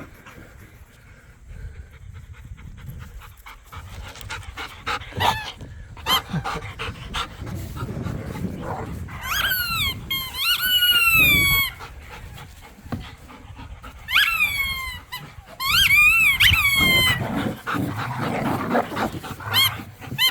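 Dogs growling and panting as they play tug-of-war, with a squeaky toy squeaking loudly in two runs of wavering squeals, about nine seconds in and again about fourteen seconds in.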